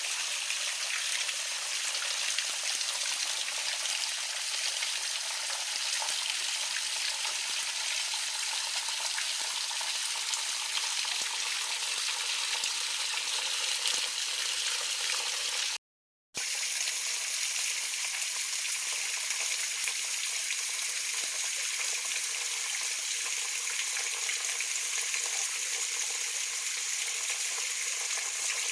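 Rushing water of a mountain creek or waterfall, a steady, even hiss. It cuts out for a moment about 16 seconds in and then carries on.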